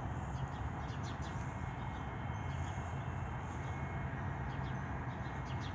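Steady low outdoor rumble with a few faint, short high bird chirps over it.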